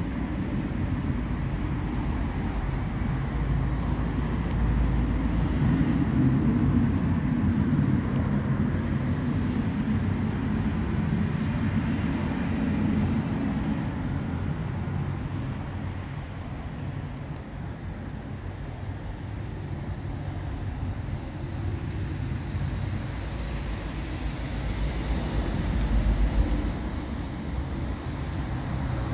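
Steady low outdoor rumble, swelling a few seconds in and again near the end.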